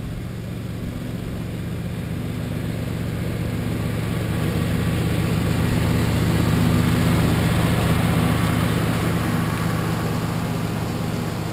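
Riding lawn mower running while it mows, growing louder as it passes close by about halfway through, then fading as it moves away.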